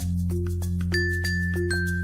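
Background music: a bright, bell-like melody over held bass notes, with a steady beat.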